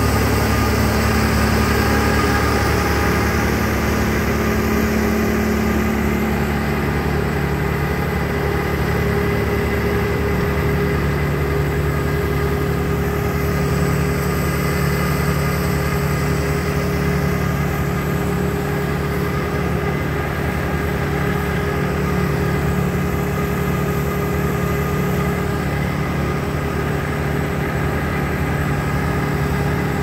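Vermeer brush chipper's engine running steadily at a constant speed.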